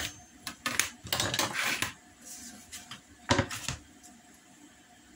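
Tools and a cutting board being handled on a workbench. There is a sharp knock at the start, a scraping, rustling slide from about one to two seconds in, and two loud clacks at about three and a half seconds. The sounds come from a steel ruler and utility knife being put down, a plastic cutting board being slid across the cutting mat, and the pattern paper being moved.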